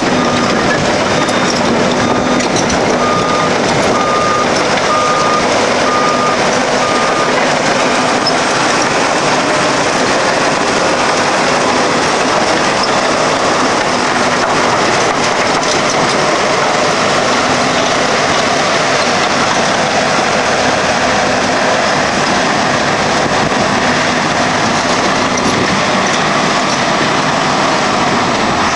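John Deere 750C crawler dozer running and moving with a loud, steady mechanical din. A backup alarm beeps about once a second for roughly the first seven seconds, a sign the machine is reversing, then stops.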